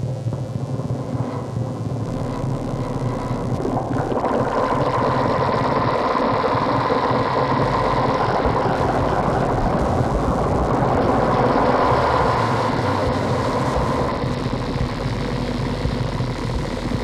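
Yamaha MR10 drum machine sounds smeared through delay and looper pedals into a dense, rumbling, droning wash. It swells up about four seconds in and eases back after about fourteen seconds.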